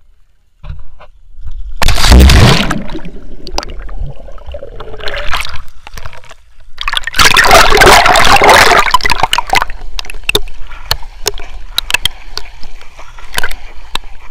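Sea water splashing and gurgling, with two loud surges of splashing, one about two seconds in and a longer one about seven seconds in, and small clicks and drips between them.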